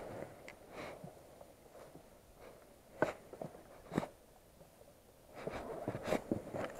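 Dry reed stems rustling and scraping against a small boat as it is pushed through a reed bed, with a few sharp knocks, two about three and four seconds in and a busier patch of rustling and knocks near the end.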